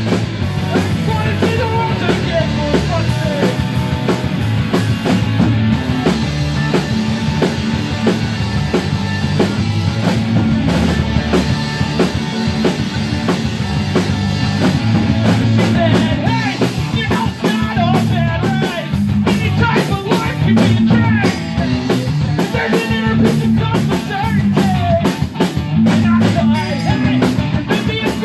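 A rock band playing live and loud: electric guitars through amplifiers, with a drum kit keeping a steady beat under them.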